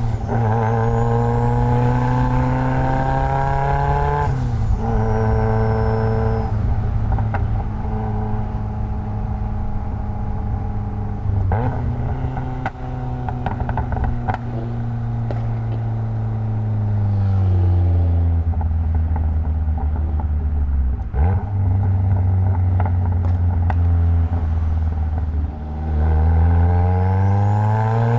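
Mitsubishi Lancer Evolution X's turbocharged four-cylinder engine under way: it pulls up through the revs with a faint high whistle rising alongside, drops in pitch at a gear change, runs steadily, then eases down to a low steady note for a long stretch before climbing in revs again near the end.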